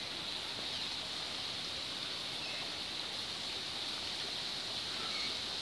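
Steady outdoor background hiss, strongest in the upper middle of the range, with a few faint short chirps about two and a half and five seconds in.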